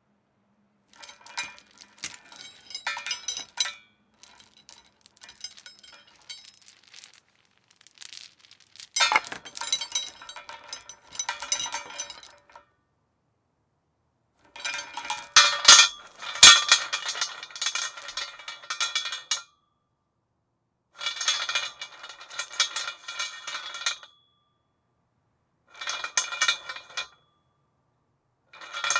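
A metal chain rattling and clinking against a metal post, in several separate bursts a few seconds long with short silences between them, and a couple of sharp knocks in the loudest burst about two-thirds of the way through.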